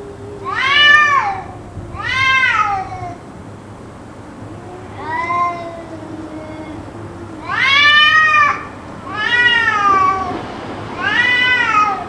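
Cats yowling: six long, drawn-out calls that rise and fall in pitch, each about a second long, with a lower, steadier moan beneath some of them. The uploader wonders whether it is a fight.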